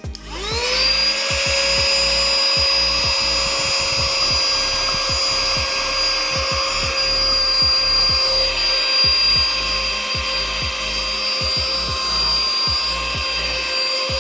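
Cordless mini handheld vacuum cleaner switched on, its motor spinning up within the first second to a steady high whine and running while it sucks up small leaf bits and dust.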